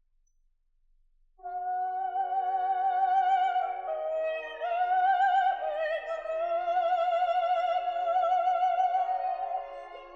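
Operatic singing with a strong vibrato on long held high notes, played back through a smartphone's small built-in loudspeaker with no bass. It starts about a second and a half in.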